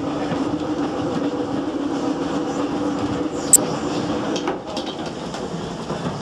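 GWR steam railmotor running along the track, heard from inside its driving cab: a steady rumble of wheels on rail with a low hum that fades out about four and a half seconds in. A single sharp click comes about three and a half seconds in.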